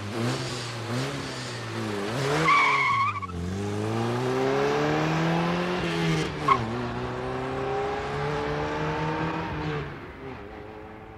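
Small sports car driven hard, its engine revving up and down, with a tyre skid squealing for about a second some two and a half seconds in. A short sharp tyre chirp comes around six and a half seconds in, and the engine fades away near the end.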